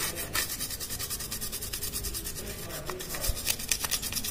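A cotton swab scrubbing a wet TV circuit board in quick, repeated back-and-forth strokes, working a carbon-remover and WD-40 mix over the components to loosen carbon deposits.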